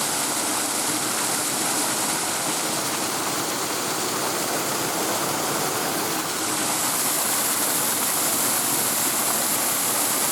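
Small waterfall and stream, a steady rush of falling water that grows a little louder about six seconds in.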